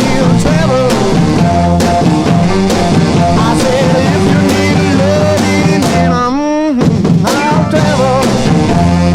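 Rock music with singing, drums and guitar. The bass and drums drop out briefly about six seconds in under a wavering sung line, then the full band comes back.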